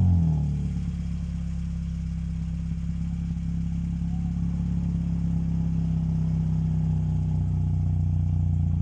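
Honda Mobilio's four-cylinder engine, just started, exhausting through a JsRacing aftermarket muffler. The revs drop from the start-up flare in the first half second and settle into a steady idle.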